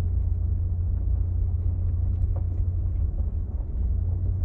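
Steady low rumble of a vehicle driving slowly, heard from inside the cabin: engine and tyre noise, with a few faint clicks.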